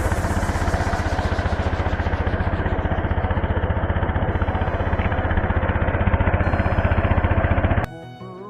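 Small boat's engine running steadily with a fast, even chugging, cutting off abruptly near the end.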